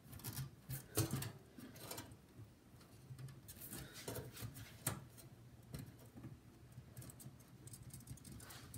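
Scattered small clicks, taps and scrapes of a plastic power connector being wiggled and tugged on a floppy drive inside a PC case, the plug stuck fast.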